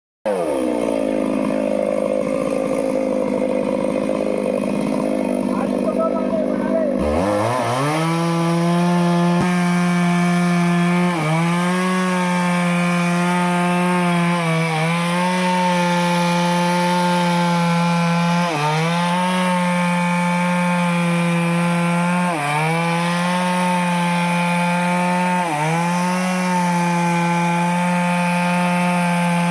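Stihl two-stroke chainsaw cutting through teak wood. From about seven seconds in, the engine runs at a steady high pitch, and every three to four seconds it briefly sags under the load of the cut before picking back up.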